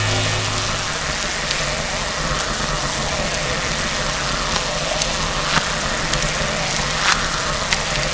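Nuclear-explosion sound effect: a steady rushing rumble of blast noise with scattered sharp crackles and pops. A low hum fades out in the first second.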